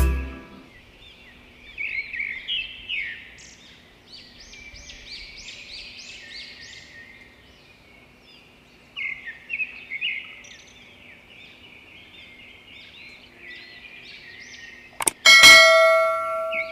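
Small birds chirping over and over in short rising and falling calls. Near the end a click and then a ringing bell chime, the sound of an animated subscribe button and notification bell.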